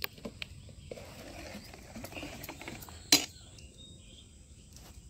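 Light clinks of a steel ladle against a steel bowl of batter, with one sharp knock about three seconds in.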